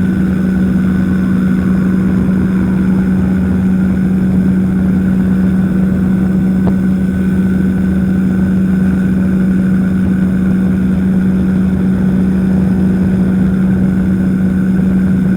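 Powered parachute's engine and propeller running steadily in cruise flight, one constant hum with no change in pitch.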